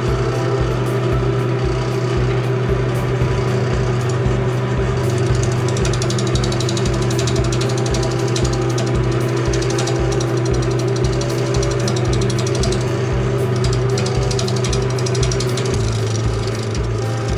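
Wood lathe motor running with a cherry bowl blank spinning on it. From about five seconds in, a hand-held turning tool cuts into the spinning wood.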